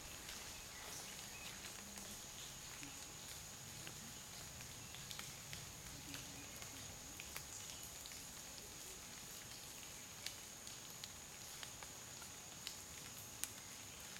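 Faint forest ambience: a steady high-pitched insect drone, with scattered light ticks and taps.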